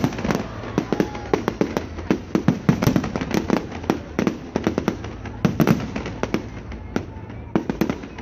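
Large fireworks display: a dense, continuous barrage of shell bursts and crackling bangs, several each second.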